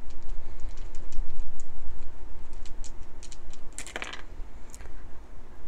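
Small wooden letter dice clicking against each other as they are shaken in a cupped hand, then tossed onto cards on a table, landing with a louder clatter about four seconds in.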